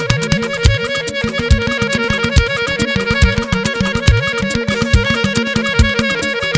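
Live band praise music with no singing: a held lead melody over a moving bass line and busy, rhythmic percussion.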